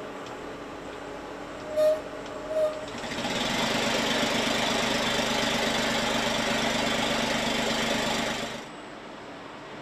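Factory machinery at an automated engine assembly station: two short beeps, then a machine runs steadily for about five and a half seconds and cuts off abruptly, leaving a lower factory background.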